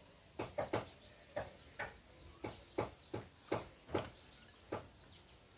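Table sounds of people eating with chopsticks from small porcelain rice bowls: irregular short clicks and taps, about two a second.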